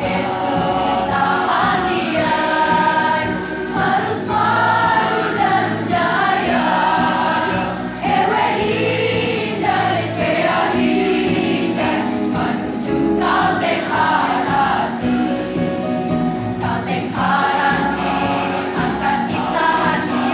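A large school choir singing, held sustained notes in many voices.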